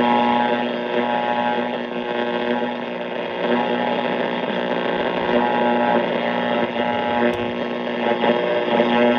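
1970s Panasonic R-1551 AM radio switched on and sounding through its speaker: a loud, steady hum with static, with no station clearly coming through.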